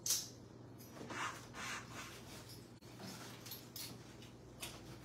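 Quiet room with a low steady hum and a few soft, brief rustling noises, the loudest right at the start.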